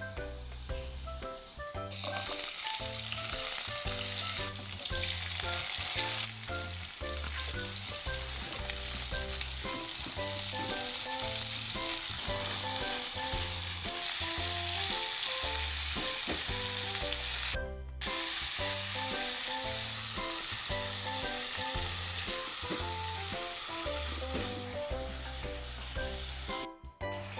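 Food frying in hot oil: a steady, dense sizzle that starts about two seconds in and drops out briefly twice, once past the middle and once just before the end.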